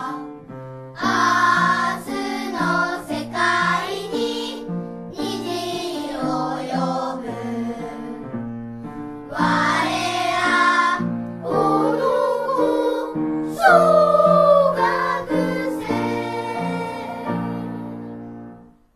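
Children's choir singing a Japanese elementary-school song with instrumental accompaniment, ending on a long held final chord that fades out near the end.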